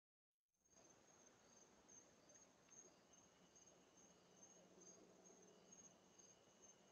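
Faint chorus of night insects: a high-pitched trilling that pulses about twice a second, with a second steady high tone joining about halfway through. It starts after a brief break in the sound.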